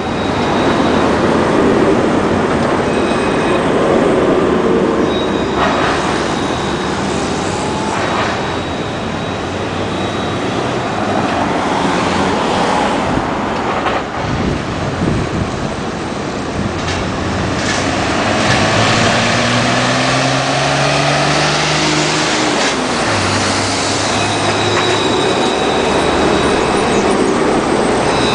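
Low-floor Alstom Citadis trams running close by on street track, with rolling wheel and motor noise over city traffic. About two-thirds through, a whine rises in pitch as a tram's electric traction motors speed up.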